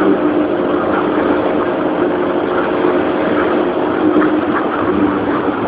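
Car engine running steadily, with vehicle noise underneath.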